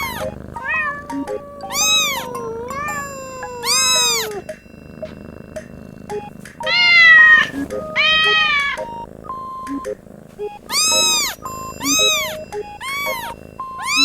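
Baby kitten meowing over and over, about ten short high-pitched meows that rise and fall, with light plinking background music between them.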